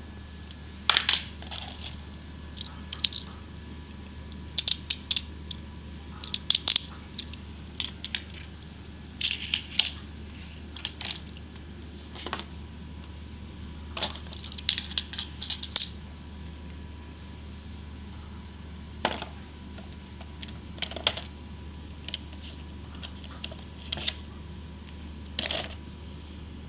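Irregular sharp clicks, taps and short rattles of a glue gun and its plastic packaging being handled during unboxing, sometimes single and sometimes in quick clusters.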